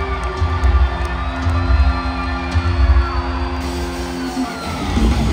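Heavy metal band playing live, amplified guitars holding long sustained notes over a low drum and bass rumble, with some crowd cheering; the held notes stop about four seconds in.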